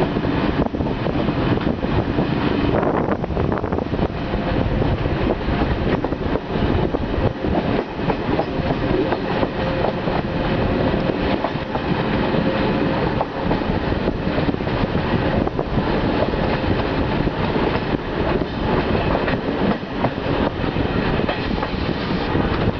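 Passenger coach rolling along the track, heard from its open window: a steady rumble of wheels on rail, with repeated clickety-clack from the wheels passing over rail joints.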